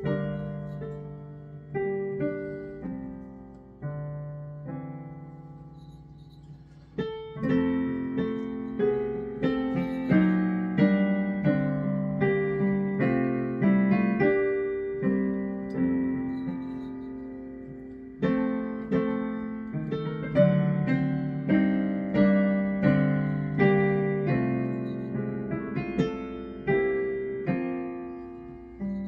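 Yamaha Clavinova digital piano playing a Christmas medley: a soft, sparse passage that turns into fuller, louder chords about seven seconds in.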